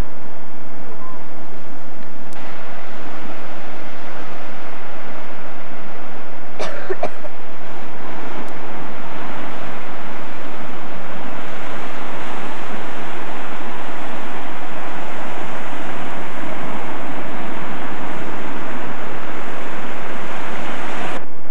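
Sea surf washing and breaking over a rocky shore, a steady rushing wash of waves.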